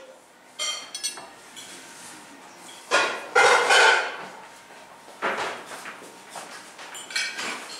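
Dishes and cutlery clinking and clattering in several short bursts, the loudest and longest about three to four seconds in.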